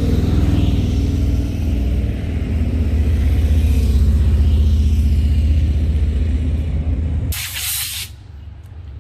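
A motor vehicle's engine running with a low, pulsing rumble that grows louder toward the middle. It cuts off abruptly about seven seconds in with a short burst of hiss.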